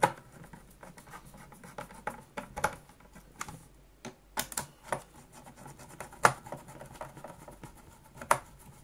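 Screwdriver turning the handle bail screws into their bracket on a Hoover Junior vacuum cleaner: irregular sharp clicks and light scratching of metal tool on metal, the loudest click about six seconds in.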